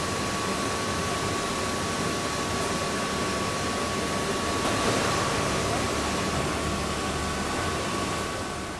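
Steam engine of a paddle steamer running in its engine room: a steady, dense mechanical noise with a thin steady high whine over it.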